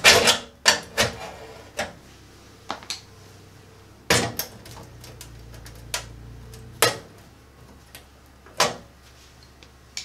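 Steel concentric knockout in the bottom of a breaker-panel enclosure being pried with a screwdriver and worked out with pliers: sharp metal clicks and knocks at irregular intervals, loudest about four seconds in.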